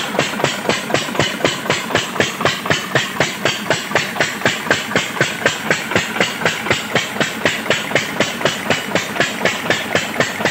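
Selkon stationary oil (diesel) engine running steadily at slow speed, its exhaust beating evenly at about four beats a second.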